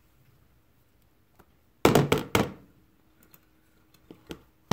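A measuring cup is knocked against the rim of a plastic bin three times in quick succession, about two seconds in, to shake out shaving cream.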